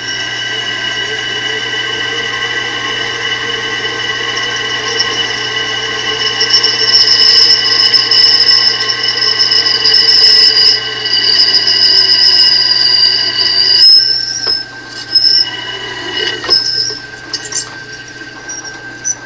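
Drill press running as its twist drill cuts a dowel hole through a stock VW flywheel, guided by a drill jig, with a steady motor hum. From about six seconds in, the bit gives a loud high squeal as it cuts. The squeal stops at about fourteen seconds and then comes back only in short spurts.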